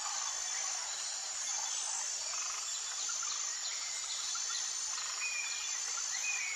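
Outdoor nature ambience: a steady high hum of insects with a few short bird chirps near the end.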